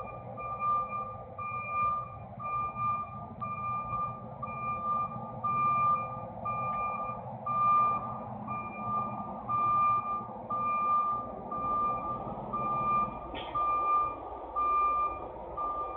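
Semi-truck's reversing alarm beeping steadily, about two high beeps a second, over a low engine rumble as the rig backs up.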